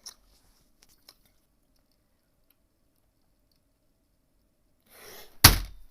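A few faint clicks, then a short rustle and one loud thump near the end: a hand banging a broken HP laptop to try to get it working.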